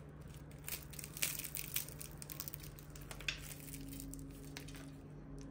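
Crisp, flaky layered börek pastry crackling faintly as hands tear a baked roll apart, a quick run of small crunches in the first few seconds.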